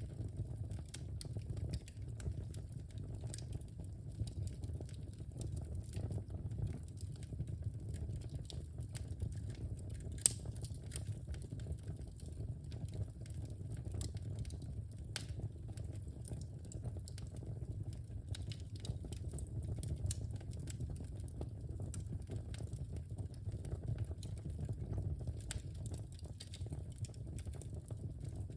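Wood fire burning in a fireplace: a steady low rush of flame with small irregular crackles throughout and one sharper pop about ten seconds in.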